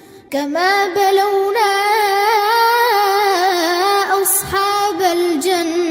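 A child's voice chanting Quran recitation in melodic tajweed style. It comes in about a third of a second in and draws out one long phrase whose pitch wavers and turns, with a brief break about four seconds in.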